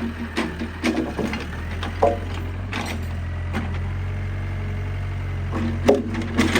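Excavator's diesel engine running steadily, with a handful of short knocks and clunks from the machine as it handles logs.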